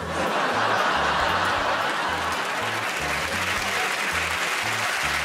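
Studio audience breaking into applause all at once and keeping it up, over background music with a repeating low bass line.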